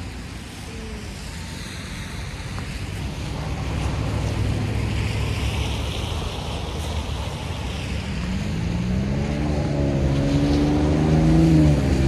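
Road traffic passing on a wet road: a hiss of tyres swells and fades around the middle, then a vehicle engine's note rises and holds over the last few seconds, with a low rumble of wind on the microphone throughout.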